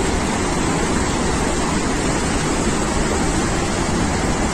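Floodwater pouring from a dam spillway and churning into white water below it, a loud steady rushing.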